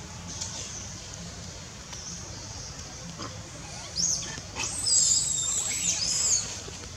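Long-tailed macaque squealing: a run of high, shrill calls that waver and glide in pitch, starting about four seconds in and lasting to near the end.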